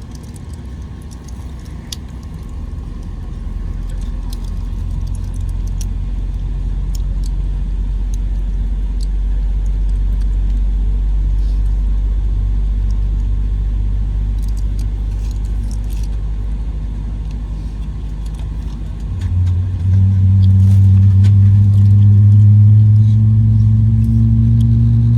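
Airliner cabin rumble during pushback, with small rattles and clicks. About two-thirds of the way in, a GE90-115B jet engine on the Boeing 777-300ER starts and spools up: a low hum that grows louder and slowly rises in pitch.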